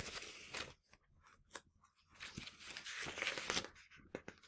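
Paper rustling as the pages of a picture book are turned and handled: a short rustle at the start, then a longer one about two seconds in, with a few light taps between.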